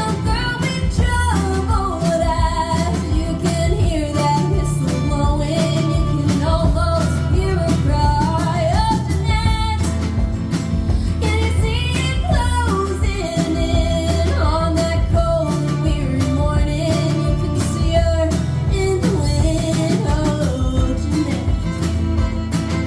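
A band playing a country-rock song live, with a lead vocal singing the melody over guitar, bass and a steady drum beat.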